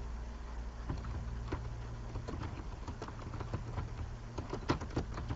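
Computer keyboard being typed on: irregular keystroke clicks that come faster near the end, over a steady low hum.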